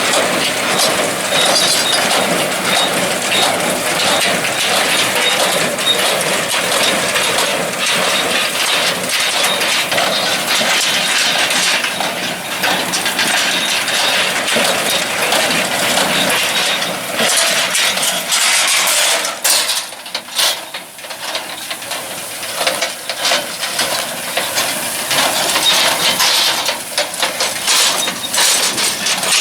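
Tractor-drawn hay baler at work: a steady mechanical clatter with many small clicks and knocks over the tractor engine, easing briefly about two-thirds of the way through.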